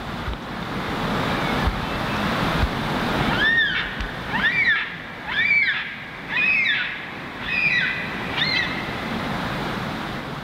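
Steady rushing noise of wind and lapping water, with a bird calling six times, one rising-and-falling note about once a second, from about three seconds in.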